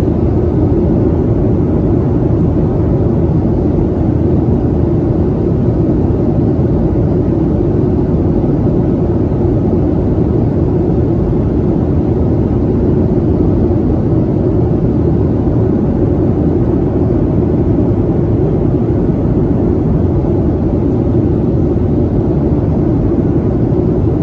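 Airliner cabin noise in flight: a loud, steady, deep rushing sound of the engines and the airflow.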